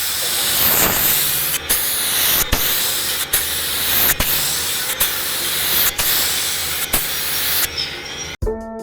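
Paint spray gun hissing steadily as primer is sprayed, stopping abruptly near the end.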